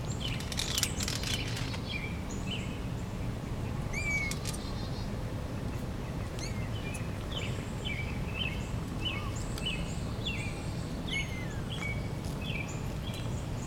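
Small birds chirping: short, high calls, scattered at first and then in a quick run of about two a second through the second half, over a steady low background hum. A brief cluster of clicks comes about a second in.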